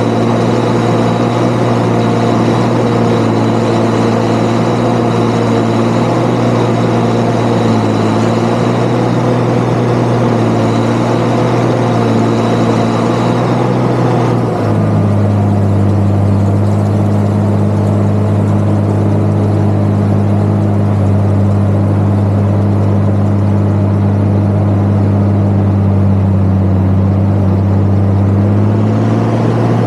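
Valtra 8400 tractor engine running steadily while working a precision forage chopper, with a high whine over it. About halfway through the whine cuts off and the engine note drops to a lower, steadier sound. Near the end it picks up again.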